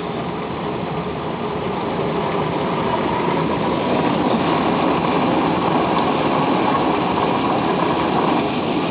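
Car travelling along the highway: steady engine and road noise, growing louder about two seconds in and easing near the end.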